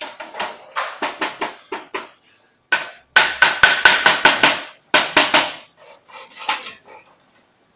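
Hammer striking sheet metal to bend over its edge, rapid blows of about four a second in three runs with short pauses between. The middle run is loudest and carries a faint metallic ring.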